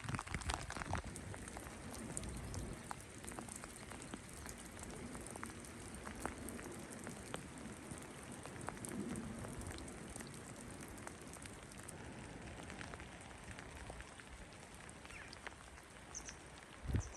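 Rain falling steadily, with scattered drops ticking close by.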